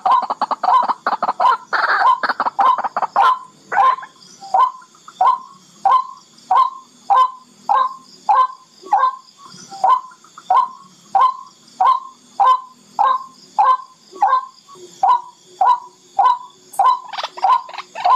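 Barred rail (tikling) calling: a fast, dense chatter for the first few seconds, then a steady series of short repeated notes, about two a second.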